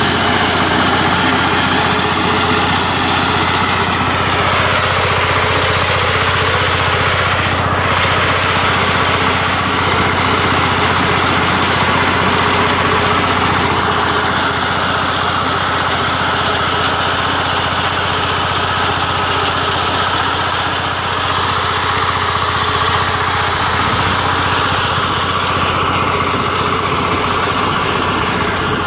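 Walk-behind power tiller with a reaper attachment, its engine running steadily at working speed while the cutter bar mows standing wheat. One brief click about eight seconds in.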